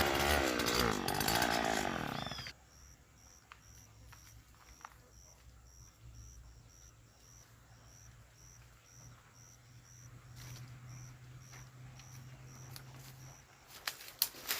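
Gasoline brush cutter's two-stroke engine running with its pitch sweeping up and down, then cutting off suddenly about two and a half seconds in. After that it is quiet, with a faint steady low hum, a faint high chirp repeating evenly about one and a half times a second, and a few clicks near the end.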